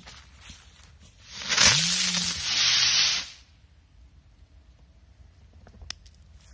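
Small 'butterfly' spinner firework going off: a loud spraying hiss for about two seconds, with a low whirring tone that rises and then falls away as it spins.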